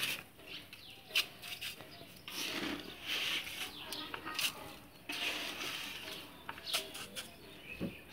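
Handfuls of damp river sand scooped from a plastic bucket and dropped into a terracotta pot: gritty rustling and soft thuds, with a few sharp clicks, the loudest about a second in.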